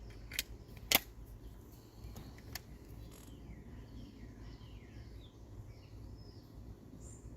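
A couple of sharp mechanical clicks in the first second, the second louder, then a faint click. After that, birds chirping in short repeated calls over quiet outdoor background.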